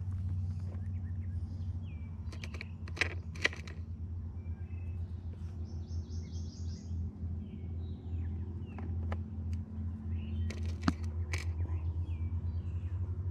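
Small items rattling and clicking in a plastic tackle box as fingers rummage for a sinker, in a few short bursts of clicks. Birds chirp over a steady low hum.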